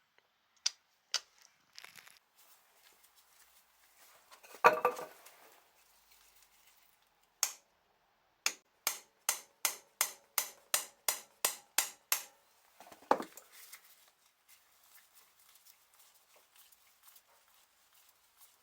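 Metal-on-metal strikes from a hammer and a hand impact screwdriver, used to loosen the small screws of the ignition stator plate. There are two loud ringing blows, one about a quarter of the way in and one past the middle. Between them comes a quick run of about ten light clicks, evenly spaced at about three a second.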